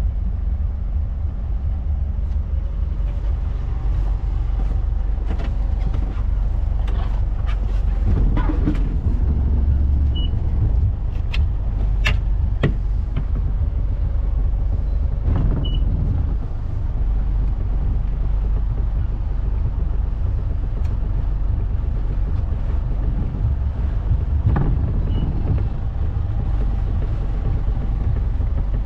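Motor cruiser's inboard engines running at low speed while manoeuvring, a steady low rumble with a few short clicks and knocks.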